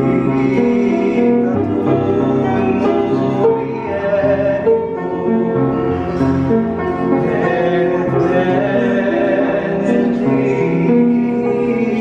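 Upright piano playing a slow, chordal song, with a man singing along.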